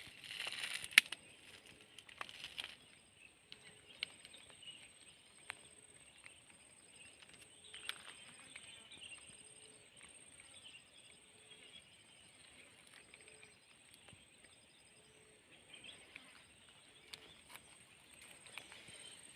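Faint outdoor nature ambience: a steady high tone, short calls repeating every half second or so, and a few clicks and rustles, the loudest about a second in.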